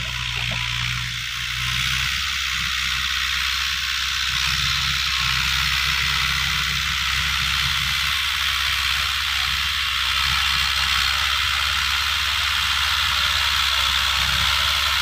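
Massey Ferguson 185 tractor's diesel engine running steadily under load while it pulls a rotary tiller through the soil, with a steady mechanical clatter. The sound rises a little about two seconds in.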